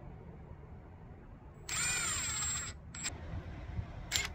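Cordless drill driving a small screw into a wooden post: one run of about a second, its motor whine rising then falling in pitch as it bites, then two short blips of the trigger.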